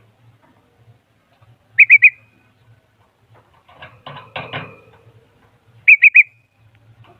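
A bulbul calling: a loud, quick three-note whistled phrase, given twice about four seconds apart, with a softer, scratchy call between them.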